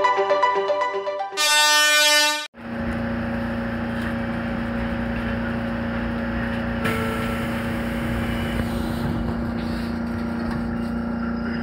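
Title music ends, then a train horn sounds once for about a second and cuts off sharply. After it comes the steady low hum of a JR Kyushu 813-series electric train standing at a platform, heard from inside the cab.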